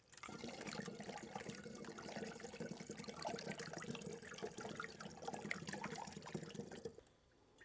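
Sugar syrup pouring in a steady stream through a strainer into a glass jug, splashing and foaming as the jug fills; the pour stops near the end.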